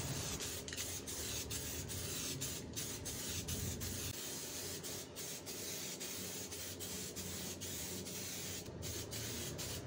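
Aerosol spray can of grey primer hissing steadily as it coats a motorcycle wheel, the hiss broken by many brief pauses where the nozzle is let go.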